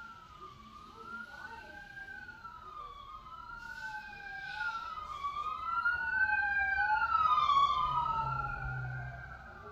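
Emergency vehicle siren wailing, its pitch sweeping slowly up and down about every two seconds, with a second wail crossing it in the opposite direction. It swells to its loudest about three-quarters of the way through, then fades.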